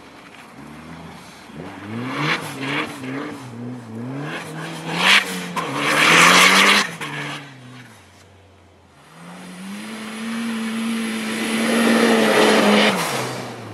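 Toyota Celica GT4 ST205's turbocharged four-cylinder engine revving hard and falling off again and again as the car is drifted, with a loud rush of tyres spinning in snow about six seconds in. After a short lull it pulls up to a long, steady high rev that drops away near the end.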